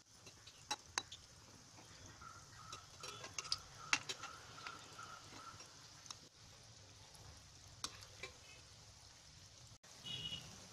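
Banana fritter balls deep-frying in hot oil in a kadhai, a faint steady sizzle, with sharp clicks of a metal ladle striking the pan as the balls are turned.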